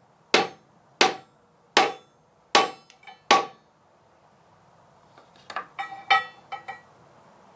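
A hammer striking a metal top cap to drive it down onto a pipe, where the plastic sleeves make it a tight fit. Five hard, ringing blows come a little faster than one a second, then after a pause a quicker run of lighter ringing taps.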